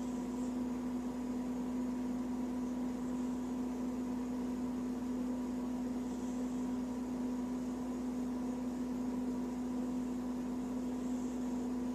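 A steady low electrical-sounding hum over a constant hiss, like a running appliance or fan. A faint, soft high hiss comes and goes every five seconds or so.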